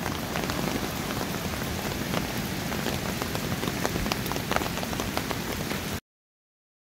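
Steady rain falling on leaves and wet ground, with many small drop ticks scattered through it; the sound cuts off abruptly about six seconds in.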